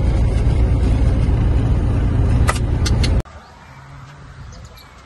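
Steady low rumble of engine and road noise inside a moving Toyota car's cabin, with a few sharp clicks shortly before it cuts off abruptly about three seconds in. After the cut, quiet outdoor ambience with a few faint bird chirps.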